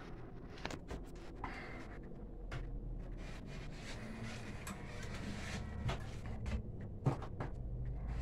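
Scattered small clicks and rustling, one sharper click about seven seconds in, over a low steady hum.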